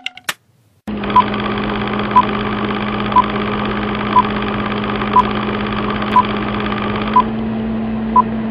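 Film-countdown sound effect: a steady, rattling movie-projector whirr with a short beep once a second, eight beeps in all, keeping time with the falling numbers.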